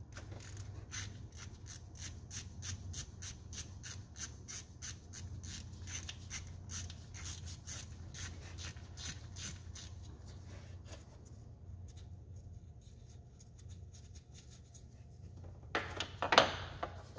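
Hand ratchet clicking steadily, about three clicks a second, as it backs out the bolts of the timing chain tensioner access cover. It stops, and near the end there is a louder clatter of metal clicks.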